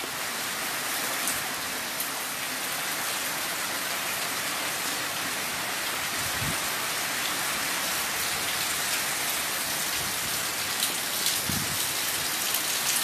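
Heavy rain falling steadily: a dense, even hiss of downpour.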